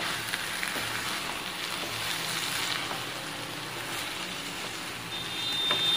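Shredded shark meat and onion paste frying in a nonstick pan, sizzling steadily while a spatula stirs and scrapes through it. A thin, high steady tone comes in near the end.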